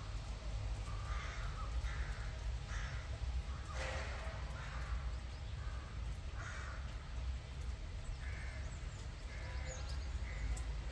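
A crow cawing repeatedly, about nine short calls at irregular intervals, over a steady low rumble.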